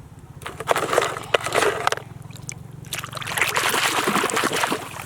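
Water splashing and trickling with small plastic knocks, as a toy gun is washed, in two stretches of about a second and a half and two seconds, over a steady low hum.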